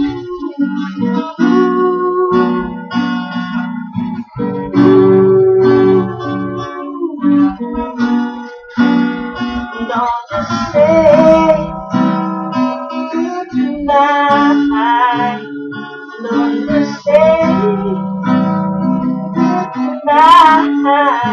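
Acoustic guitar strummed and picked, with a man singing over it. His voice comes out louder and higher about ten seconds in and again near the end.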